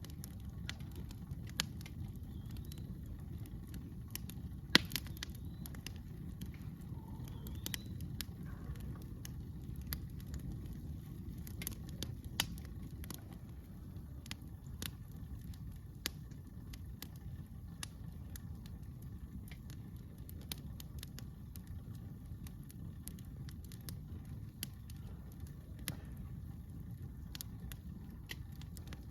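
Wood campfire crackling, with scattered sharp pops, the loudest about five seconds in, over a steady low rumble.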